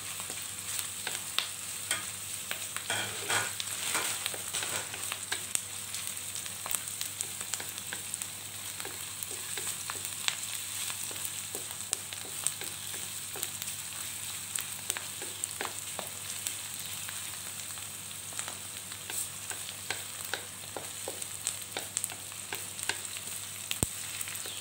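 Sliced onion and garlic sizzling in oil in a metal wok, stirred with a wooden spatula that scrapes and taps against the pan in many short clicks.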